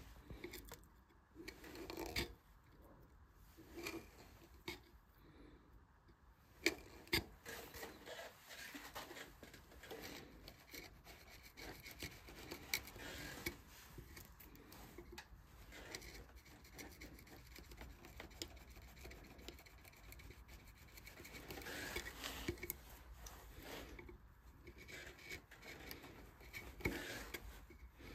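Hand carving in wood: irregular scraping and cutting strokes of carving tools across the wood, with scattered sharp clicks as tools touch down.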